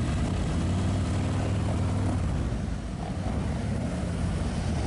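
Steady low engine rumble from a running vehicle.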